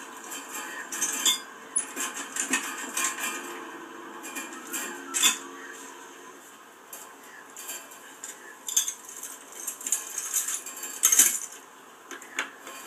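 Irregular metallic clinks and rattles of fencing wire and hardware being handled and tied off, a scatter of sharp clicks with several louder ones, heard played back through a television.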